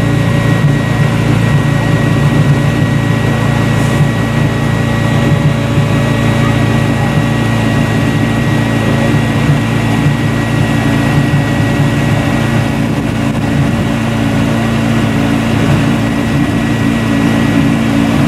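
Hydraulic power unit of a service truck's car-lift platform running steadily under load, a low even hum with a thin constant high whine, as the platform is raised.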